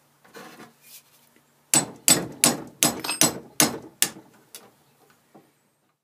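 Hammer striking a steel pin punch set on a chainsaw chain rivet over a vise: about eight sharp strikes in under three seconds, then one lighter tap near the end, driving the rivet out to break the chain.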